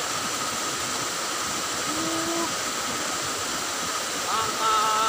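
Water of a small irrigation ditch flowing steadily, with a brief louder pitched, voice-like sound near the end.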